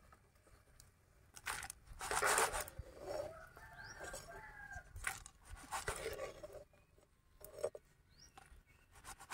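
A perforated metal skimmer scraping in an iron kadai as fried dried red chillies and whole spices are lifted out and tipped onto a steel plate. The scraping and rustling come in several short bursts.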